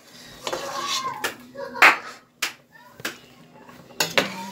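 A metal utensil clinking and knocking against a pot of boiled mantı dumplings, about five sharp clinks with the loudest a little under halfway through.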